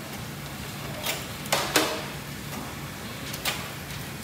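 Tofu packing conveyor running with a steady low machine hum, with a few sharp metallic clacks as the line of tray holders moves along.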